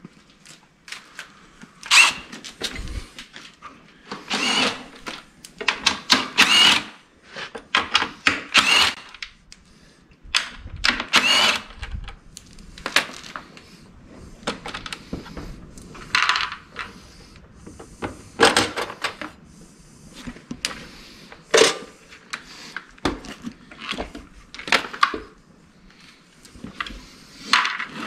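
A cordless drill run in short bursts, several times, driving screws out of the casing of a Honda Insight hybrid battery pack being taken apart, with clunks and rattles of plastic and metal parts being handled in between.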